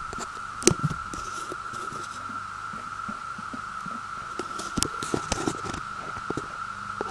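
A chorus of cicadas making a steady, unbroken drone on one pitch. Scattered sharp clicks and knocks sound over it, loudest a little under a second in and in a cluster around five seconds in.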